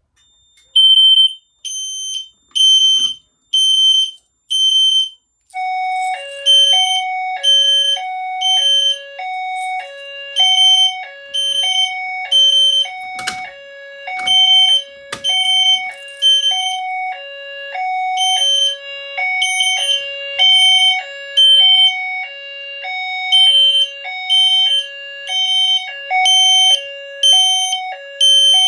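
Fire alarm system in alarm: System Sensor L-Series and SpectrAlert Classic horn strobes sounding on their 3000 Hz tone, a loud train of high-pitched electronic beeps much like smoke alarms. About five seconds in, a lower signal joins, alternating steadily between two tones under the beeps.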